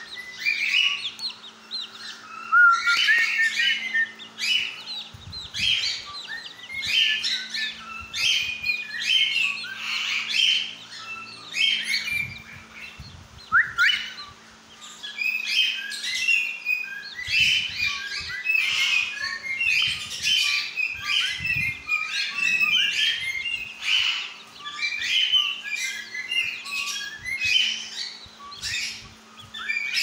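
Small parrots chirping in a continuous stream of short, high, quick calls, with a faint steady low hum beneath.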